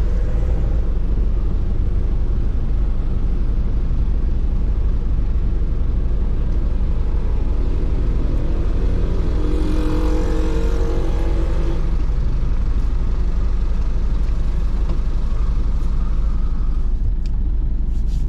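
Steady low rumble of a motor vehicle running. About halfway through, a brief higher, tonal sound swells over it and fades.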